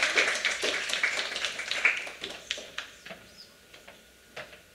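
Audience applause, dense at first, dying away about two seconds in to a few last scattered claps.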